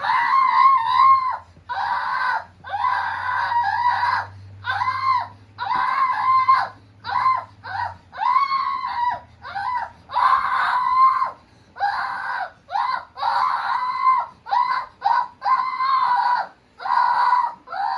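A person screaming loudly over and over, about one short yell a second, each rising and falling in pitch, as a deliberate noise test for a puppy.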